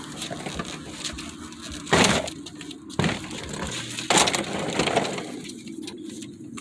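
Three sharp clattering knocks about a second apart, hard objects striking one another.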